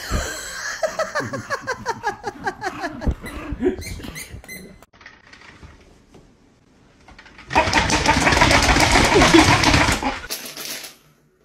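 Small dog, a miniature schnauzer, barking in a quick run of short yaps that fall in pitch, for about three seconds. Later a loud, rough noise of unclear source lasts about three seconds and stops suddenly.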